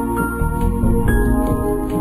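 Instrumental background music with held notes that change about halfway through.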